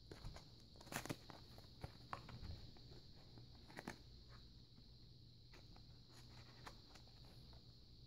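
Near silence with a few faint clicks and taps, the loudest about a second in and again near four seconds: a cardboard-backed blister-pack game package being turned over and handled.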